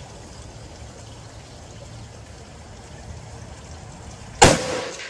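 A single rifle shot about four and a half seconds in: a sharp crack followed by about a second of echo trailing off. Before it only a steady faint background hiss.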